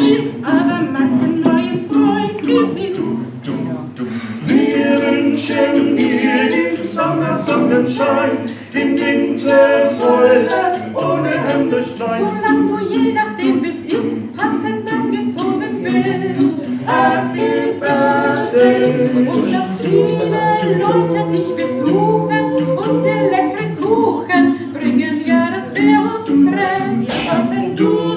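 A small mixed vocal group of two women and two men singing a cappella together, with brief pauses between phrases.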